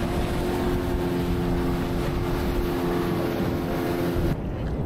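Fishing boat's engine running steadily under way, a constant hum over rushing noise; it cuts off abruptly near the end.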